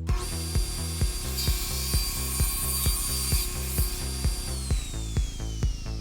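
Table saw starting up and cutting through wood for about two seconds, then switched off, its whine falling steadily in pitch as the blade spins down. Background music with a steady beat plays underneath.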